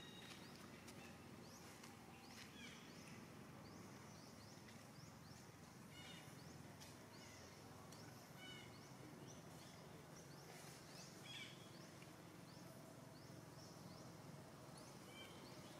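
Near silence: faint forest ambience with scattered short high bird chirps every second or two.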